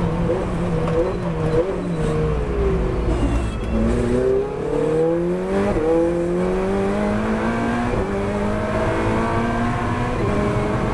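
Ferrari 488 Challenge's twin-turbo V8, heard from inside the cockpit, falling in pitch through a series of downshifts under braking into a slow corner. It then rises again under acceleration, dropping back in pitch at each upshift.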